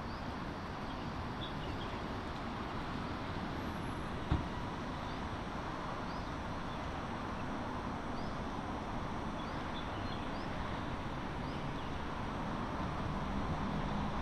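Steady city street ambience: a wash of traffic noise, with faint high chirps now and then and a single sharp knock about four seconds in. A low engine hum joins near the end.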